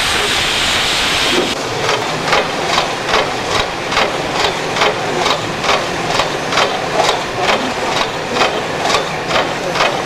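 A steady hiss of steam, then, about a second and a half in, the slow even exhaust beats of DR class 24 steam locomotive 24 009, a two-cylinder 2-6-0, pulling away with its train at about two and a half chuffs a second. Steam hisses from the cylinder drain cocks under the beats.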